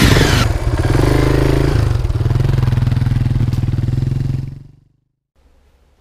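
Motorcycle engine running and revving, opening with a sudden whoosh, then fading out about four and a half seconds in.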